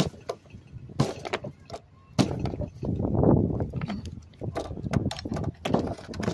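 Hard plastic snow blower housing being handled and worked at to free a stuck plastic piece: a series of sharp knocks and clacks with scraping and rattling between them.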